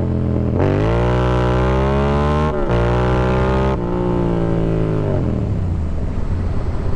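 Yamaha MT-07 parallel-twin engine with an aftermarket M4 exhaust, revving up hard under acceleration. It upshifts with a brief break in the sound about two and a half seconds in, then climbs again. A little before the four-second mark the throttle closes and the revs fall as the bike slows, settling to a low idle rumble near the end.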